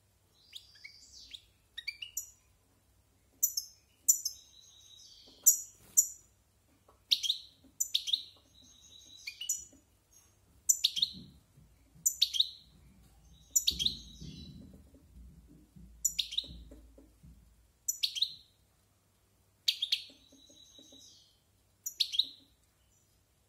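Caged European goldfinch singing: sharp, high notes about once a second, with short twittering phrases between them.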